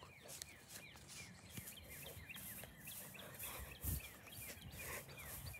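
Small songbirds chirping, a quick run of short falling chirps repeating several times a second. Rustling footsteps in dry grass go along with it, and there is one low thump about four seconds in.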